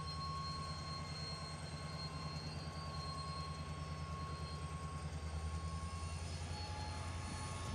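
Diesel-electric locomotive engine running steadily: a low throbbing rumble with a thin steady whine above it.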